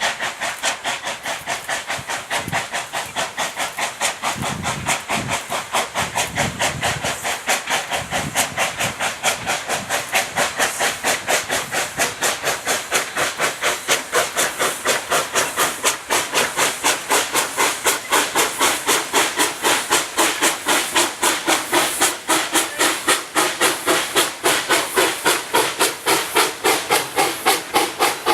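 Industrial steam locomotive Florence No. 2 working hard up a steep bank at slow speed: a steady, even chuff of exhaust beats, about three to four a second, over a continuous steam hiss.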